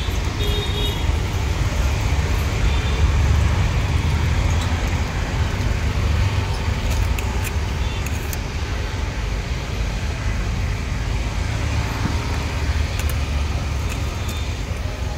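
Steady street traffic rumble from passing vehicles, with a short high horn beep near the start.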